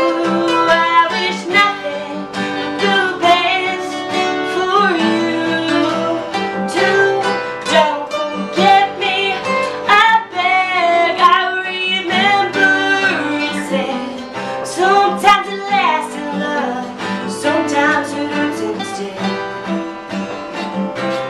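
Two acoustic guitars played together, strummed and picked, accompanying a young woman singing a slow ballad.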